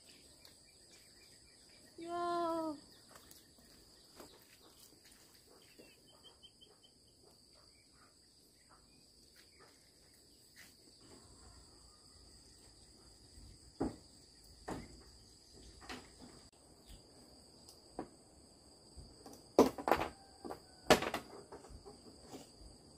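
Insects droning steadily on two high pitches, with a short pitched call about two seconds in. A few sharp knocks come near the end and are the loudest sounds.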